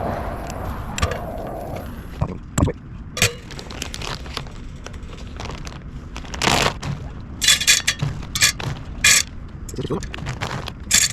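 A run of short, sharp striking and scraping sounds, several in quick succession, as a fire starter is being lit, after a few seconds of quieter handling.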